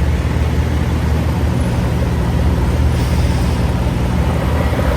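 Semi-truck engine running with a steady low drone, under an even rush of road noise.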